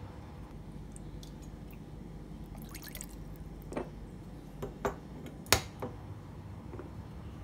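Olive oil going into a stainless-steel bowl: a brief trickle about three seconds in, then about five separate drips plinking onto the metal, the loudest a little past halfway.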